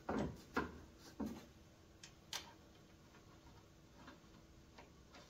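A handful of light, scattered clicks and knocks, about five over five seconds, from metal suspension parts and hardware being handled and fitted at the front coil-over shock.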